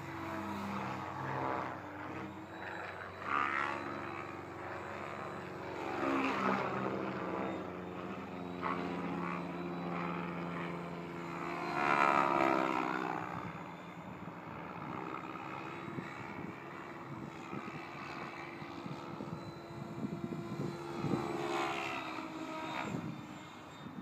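Align T-Rex 700E electric RC helicopter flying past; the sound of its rotor and motor glides up and down in pitch and is loudest about halfway through.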